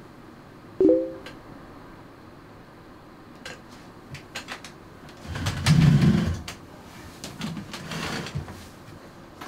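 A man moving about a small room: a brief squeak about a second in, a few light clicks, then a louder rustling, shuffling sound as he sits down in a desk chair, with smaller rustles after it.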